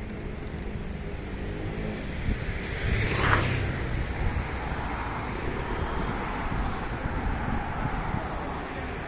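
Road traffic noise: a steady rumble of cars, with one car passing close about three seconds in, its tyre noise swelling and fading.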